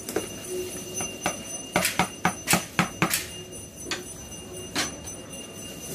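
Kitchen utensils and a cooking bowl clinking and knocking: a quick run of about half a dozen sharp knocks a couple of seconds in, then two single knocks spaced about a second apart.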